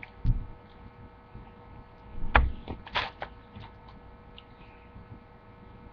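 A few knocks and clicks: a dull thump early, a louder knock about two and a half seconds in followed by a couple of sharp clicks, over a faint steady electrical hum.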